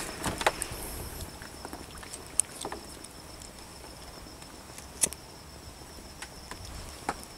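Water trickling and dripping as a wet anco lift net is raised on its bamboo frame, with a few sharp clicks and knocks. A faint steady insect trill runs underneath.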